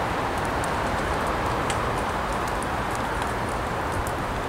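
Steady outdoor background noise: an even, unbroken rush with a few faint scattered ticks.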